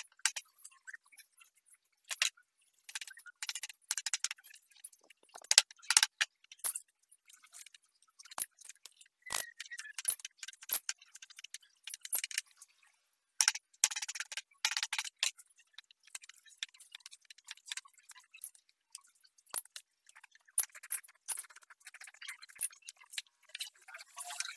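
Hand chisel paring and scraping wood in short, irregular strokes, with a few light clicks and knocks of tool and wood against the bench.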